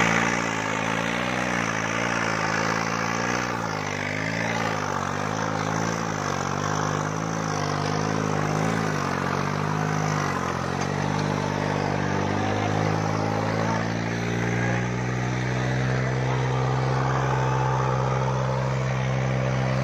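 New Holland 3630 tractor's three-cylinder diesel engine labouring under heavy load as it drags a weighted plough through the soil. Its pitch wavers up and down for the first ten seconds or so, then settles into a steady, slightly higher note.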